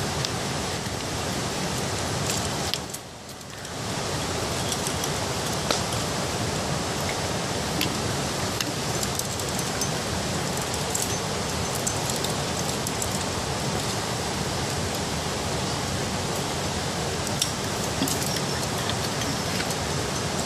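Steady rushing hiss, with a few faint clinks of metal climbing gear racked on a harness.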